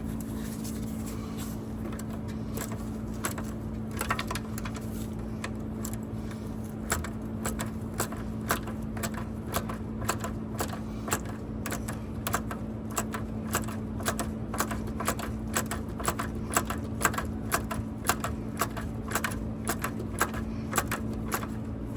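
Hand ratchet clicking in irregular runs of short strokes, a few clicks a second and more often in the second half, as a nut on the seat shock's mounting bolt is worked down, over a steady low hum.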